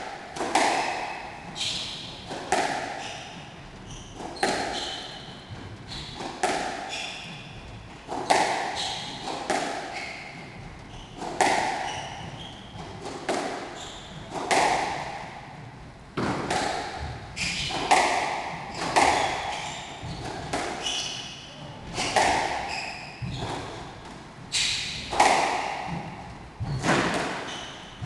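Squash ball being hit back and forth in a rally: sharp racket strikes and ball-on-wall smacks about once a second, each ringing briefly in the enclosed court, with short high squeaks of shoes on the wooden floor between some shots.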